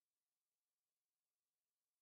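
Silence: the soundtrack is effectively empty.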